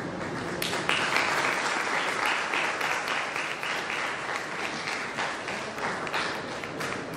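Audience applauding: many hands clapping, breaking out less than a second in and thinning out toward the end.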